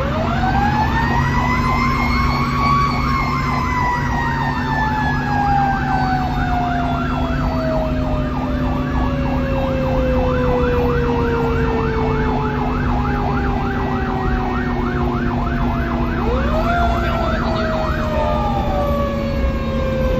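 Fire engine sirens heard from inside the cab while responding: a mechanical siren winds up to a high wail and then slowly coasts down, is wound up briefly again near the end, over a fast electronic yelp siren that repeats throughout. The truck's engine runs steadily underneath.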